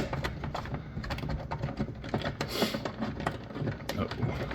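Rapid, irregular clicking of a hand ratchet tightening the small bolts that hold a taillight on a UTV, with a short rasp about two and a half seconds in.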